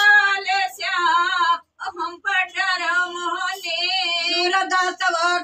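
A woman's voice singing an Awadhi dhobi geet folk song without accompaniment, the melody wavering and ornamented, with a short breath pause about two seconds in.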